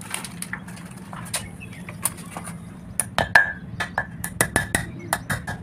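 Small hammer tapping metal on metal to seat a ring into a brake disc's hub. A few scattered clinks come first, then from about three seconds in a quick run of sharp ringing taps, about four a second.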